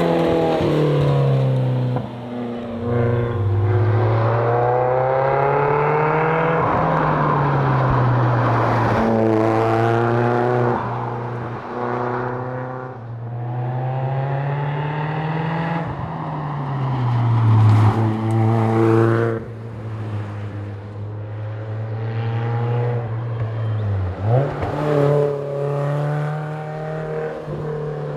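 Lotus Elise S four-cylinder engine driven hard, revving up through the gears and dropping back again and again, its pitch climbing over a few seconds and falling away at each shift or lift.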